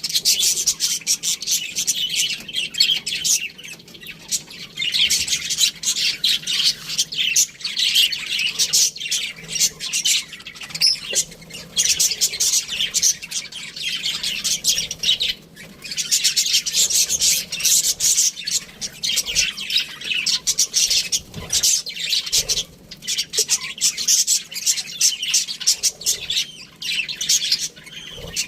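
A group of budgerigars chattering and chirping continuously, rapid high twittering and squawks that come in busy stretches with brief lulls.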